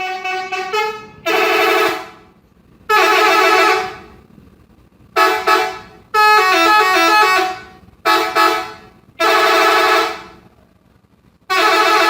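Bus "telolet" horn, a multi-tone musical air horn, sounding a string of loud blasts: a few quick toots at first, then held chords. One longer blast about six seconds in steps through a short melody.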